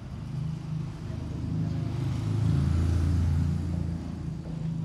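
A motor vehicle's engine running steadily, growing louder about halfway through and easing off again near the end.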